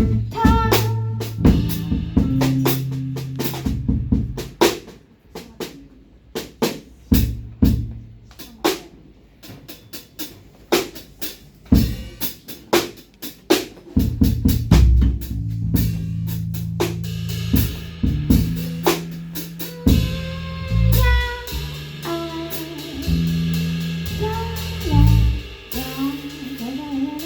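A live band playing an instrumental passage: drum kit with snare and bass drum over an electric bass line. About five seconds in, the band drops back to sparse drum hits, and about halfway through the full band comes back in, with a lead melody line joining soon after.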